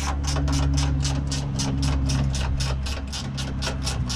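Small electric power tool, most likely a cordless ratchet on the condenser mount bolts, running steadily with a low motor hum and rapid even clicking, about eight clicks a second.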